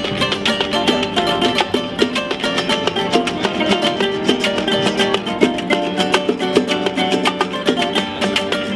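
Small Latin band playing live: acoustic guitars strumming and plucking over bongos and hand percussion, in a quick, steady, salsa-like rhythm.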